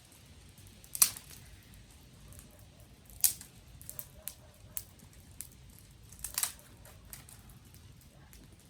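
Dry twigs snapping and crackling: three loud, sharp snaps about one, three and six and a half seconds in, the last the loudest and doubled, with a few smaller cracks between.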